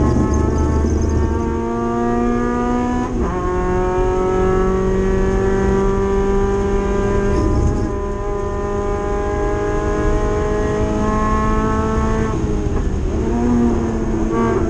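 Spec MX-5 race car's four-cylinder engine heard from inside the cabin under hard acceleration. The revs climb, drop sharply at an upshift about three seconds in, then climb in one long steady rise. Near the end the revs fall away as the car slows, then pick up again.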